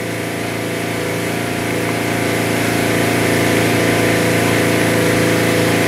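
Steady machine hum, a drone with many even overtones, slowly growing a little louder.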